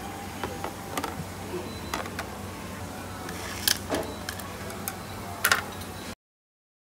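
Light clicks and clatters of chopsticks and a plastic serving tray being handled, with the two sharpest clacks in the second half, over a steady low hum. The sound cuts off to silence near the end.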